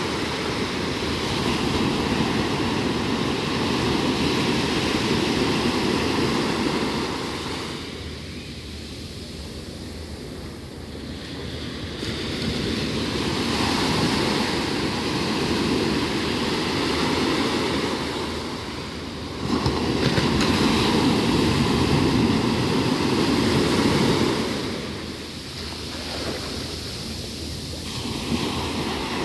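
Sea surf breaking and washing up a sandy shore, rising and falling in long surges several seconds apart. The loudest surge begins suddenly about twenty seconds in.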